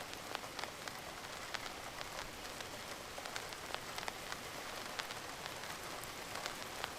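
Recorded rain ambience: a steady hiss of rain, scattered with many short sharp crackles and ticks like vinyl surface noise.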